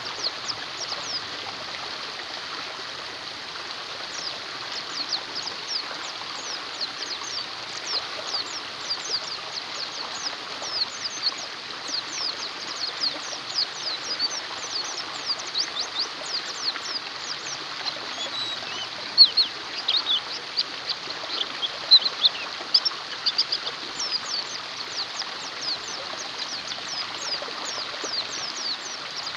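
White-eyes (pleci) chirping continuously in quick, high, sweeping notes, with a few louder chirps a little past halfway, over a steady hiss of running water.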